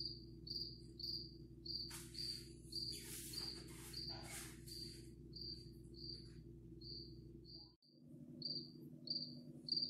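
Recorded cricket chirping played through a phone speaker: short, high chirps repeating about twice a second. A few rustling noises come about two to four seconds in.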